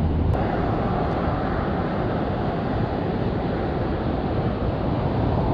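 Steady rushing noise with one sharp click about a third of a second in.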